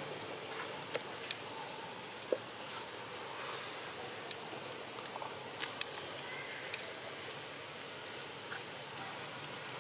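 Quiet outdoor background hiss broken by several brief, sharp clicks and ticks scattered through it, the kind made by small movements over dry twigs and leaf litter.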